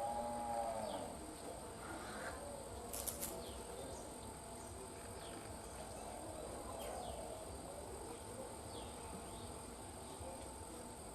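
Small birds giving short, falling chirps every second or so over a steady, thin high-pitched tone, with a brief low call right at the start.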